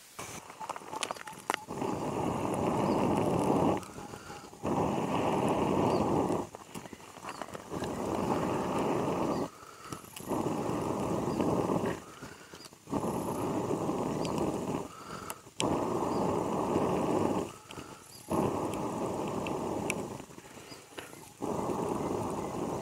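A person blowing hard into the smouldering Swedish fire torch to fan its embers into flame: a series of long, rushing blows of about two seconds each, with short pauses between them to draw breath.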